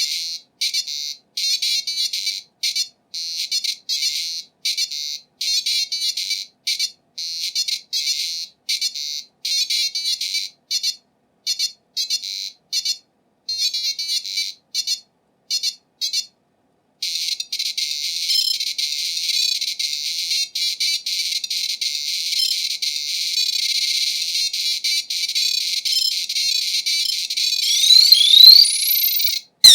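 PC speaker beeper music from a demoscene demo running on a replica IBM PC XT. It begins as short, evenly spaced beeps about twice a second, turns into a continuous warbling tone about halfway through, and ends with quick rising sweeps.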